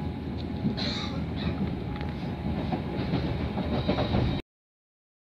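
A passenger train running, heard from inside the carriage through a phone's microphone. The sound cuts off abruptly to silence about four seconds in.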